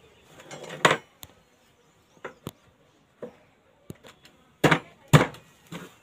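Wooden knocks and clatter from a wooden bee box and its frames being handled: a string of separate sharp knocks, the two loudest close together near the end.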